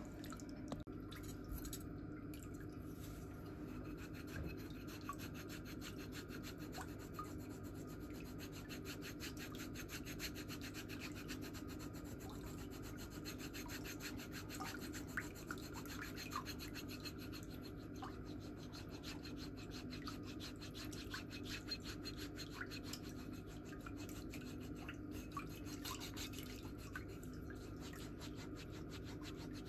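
Metal foot file rasping dry, callused skin on the sole and heel, in quick, steady back-and-forth strokes.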